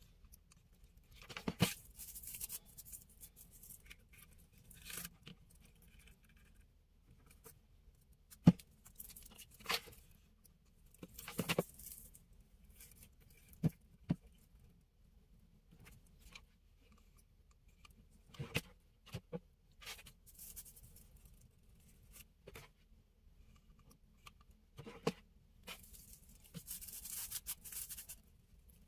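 Sparse crafting handling noises: raffia tassels and paper rustling and scraping under the hands, with a few sharp taps in between.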